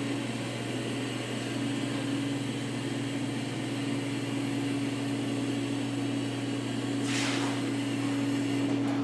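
Car lift lowering a car: a steady mechanical hum with a steady whine over it, and a short burst of noise about seven seconds in.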